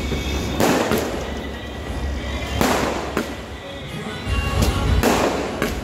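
Fireworks bursting: about six sharp bangs, coming roughly in pairs about two seconds apart, each trailing off after the bang, with music playing underneath.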